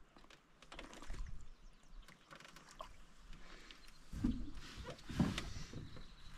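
Handling noises in a canoe: scattered light clicks and taps, with two duller thumps about four and five seconds in.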